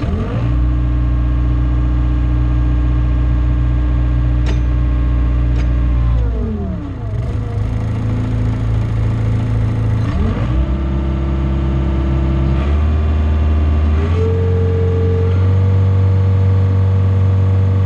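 John Deere skid steer loader's diesel engine running, its throttle brought up at the start, dropped back to idle about six seconds in, then raised again in steps from about ten seconds in before falling away near the end.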